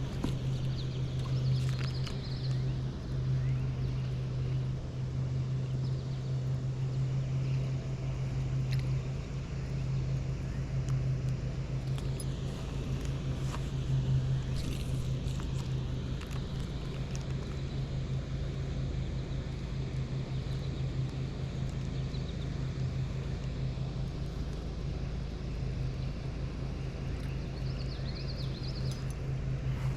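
A steady low hum over a low rumble, with a few short, high bird chirps near the start and again near the end.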